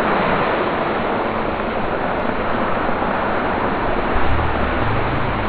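Sliced onions dropped into very hot oil in a large wok (kadhai): a loud, steady sizzle that starts abruptly as they hit the oil. A low rumble joins about four seconds in.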